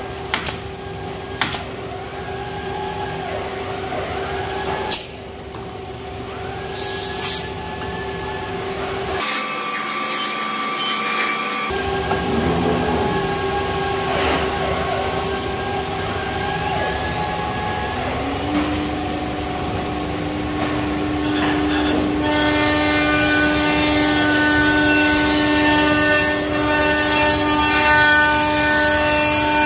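Pneumatic nailer firing a few sharp shots into wood near the start, then a CNC router's spindle spinning up about two-thirds of the way through and running with a steady high whine that grows louder.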